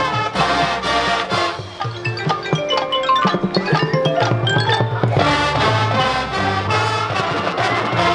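A high school marching band playing a Motown arrangement, with mallet percussion such as marimba, xylophone and glockenspiel standing out in quick runs of short notes over held band chords.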